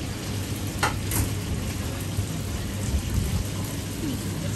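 Deep-fat fryer sizzling steadily as kibbeling, battered cod pieces, fry in the oil, with two sharp clicks about a second in.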